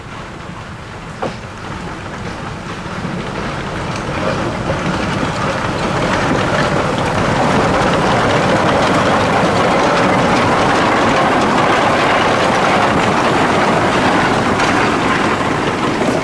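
1905 Shay geared steam locomotive running light past at close range. The sound of its engine and running gear grows steadily louder over the first several seconds as it draws near, then holds. There is one sharp click about a second in.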